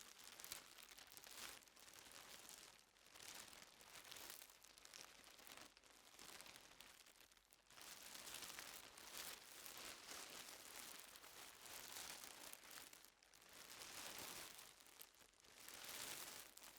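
Plastic bag crinkling and rustling as it is carried while walking, the rustle swelling and fading over and over.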